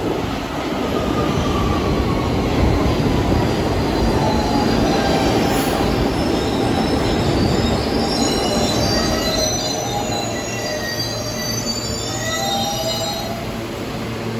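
New York City subway train running on steel rails, a whine falling in pitch over the first few seconds over a steady rumble. From about eight seconds in, high-pitched steel wheel squeal sets in and lasts several seconds.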